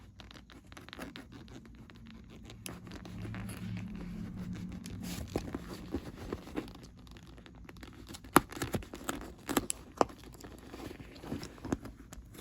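Hands working on a canvas bag with leather trim, taking it apart: rustling, scraping and tearing sounds, then a run of sharp clicks and knocks in the second half.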